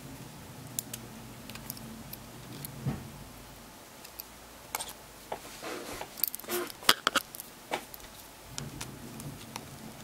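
Irregular small plastic clicks and snaps of a smartphone's mid chassis being pried apart from its front housing. They are sparse at first, then come thick and fast in the second half, the loudest about seven seconds in.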